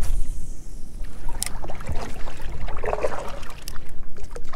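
Wind rumbling on the microphone, with water splashing and trickling off a kayak paddle as it strokes.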